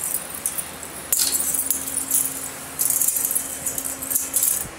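Metal bangles and a child's silver anklets jingling and clinking as hands wash the feet in a bowl, in two long stretches of shaking, from about a second in and again from about three seconds in.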